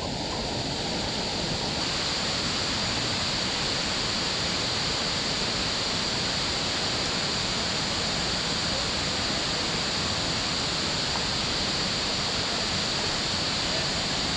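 Burgess Falls pouring into the pool at its base: a constant, unchanging rush of falling water.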